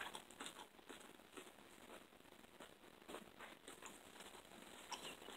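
Near silence with faint, scattered small clicks and rustles of a person chewing a chicken sandwich with the mouth closed.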